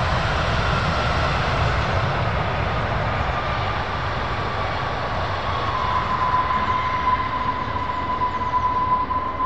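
Boeing 777-300ER's GE90 jet engines rumbling with a turbine whine as the airliner rolls out down the runway after landing. The whine falls in pitch over the first several seconds, then holds steady.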